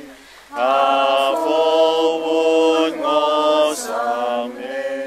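Slow sung religious chant: long held vocal notes, a new note roughly every second, resuming after a brief pause about half a second in.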